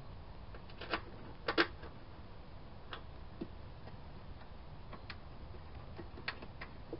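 Scattered light metallic clicks and taps as 10 mm bolts are handled and started by hand into the wiper transmission's mounts, the loudest a quick double click about a second and a half in. A low steady rumble runs underneath.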